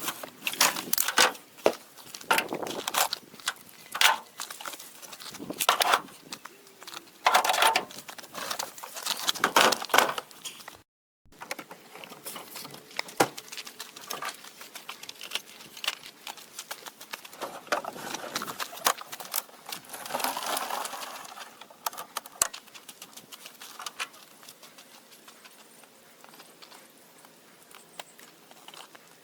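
Irregular knocks and clicks, dense at first, then sparser after a brief break about eleven seconds in.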